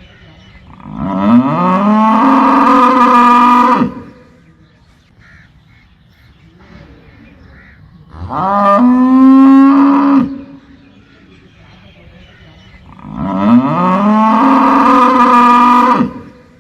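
Cow mooing three times, a few seconds apart; each moo lasts two to three seconds, rising in pitch at the start and then holding steady.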